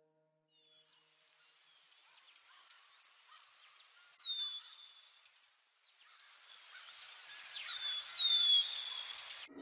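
Nature ambience of insects chirping in a rapid, high, pulsing trill, with a bird giving several short whistled calls that slide down in pitch. It grows louder and cuts off abruptly near the end.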